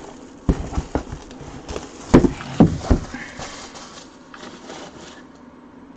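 Plastic shrink-wrap being pulled off a boxed autograph jersey, crinkling, with a series of knocks and taps as the box is handled, loudest a little over two seconds in.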